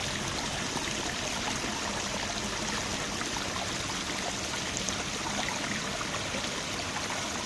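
Creek water running and trickling steadily over stones.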